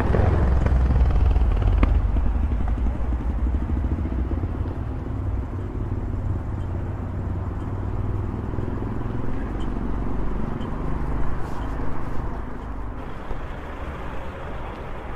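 Steady rushing rumble from riding an electric scooter along a city street, with road and air noise. It eases a little after the first few seconds.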